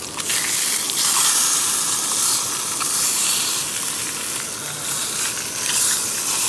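Surf perch fillets sizzling in hot coconut oil in a cast-iron skillet. It is a steady hiss that gets louder just after the start and then holds.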